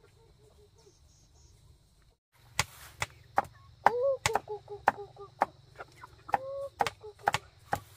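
Kitchen knives chopping cassava root on a wooden board and a tree stump: sharp, irregular chops starting a couple of seconds in, about two a second.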